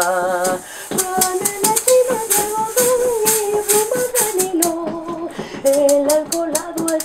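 Maracas shaken in a quick, crisp rhythm, accompanying a singing voice that holds a long wavering note at the start and then moves through a melody.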